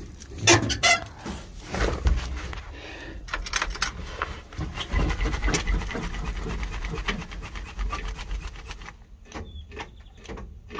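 Knocks and rubbing, then about three seconds in the ignition is turned on a 1962 Chevy C10 and its starter gives a fast, even run of clicks with a low rumble without the 235 inline-six starting, slowing to spaced clicks near the end: the sign of bad battery connections.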